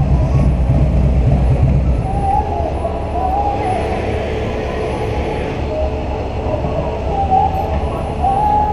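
Motorcycle engine running at low speed, a steady low sound that is a little louder for the first two seconds.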